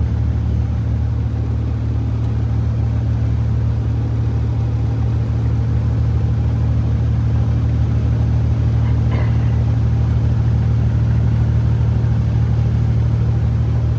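Diesel engine of a 2006 Freightliner Classic semi truck running steadily at road speed, heard from inside the cab, with a loaded grain trailer of about 32 metric tons behind it.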